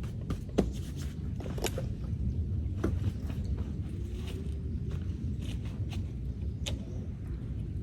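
Scattered short clicks and light knocks over a steady low rumble.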